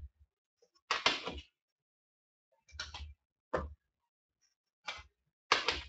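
A trading card box being opened and handled, heard as about five short scraping and rustling bursts of cardboard and packaging with silent gaps between them.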